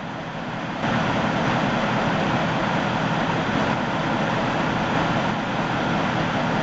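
Steady vehicle engine noise with an even hiss over it, stepping up in level about a second in and then holding steady.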